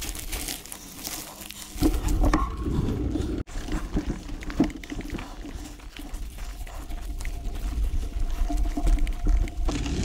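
Mountain bike on a dirt trail: tyres crunching over dirt and dry leaves, with scattered clicks and rattles over a low rumble. The sound breaks off sharply about three and a half seconds in and starts again.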